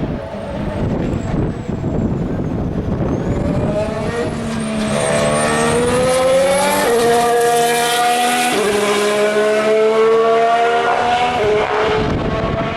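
A 2014 Formula One car's 1.6-litre turbocharged V6 hybrid engine accelerating up through the gears as it passes. The note climbs and drops back at each upshift, about three times.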